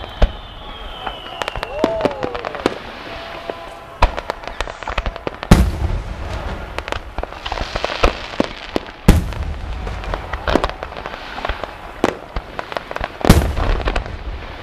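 Aerial fireworks display: heavy shell bursts booming every few seconds, the loudest about five and a half, nine and thirteen seconds in, over a steady run of smaller crackling reports.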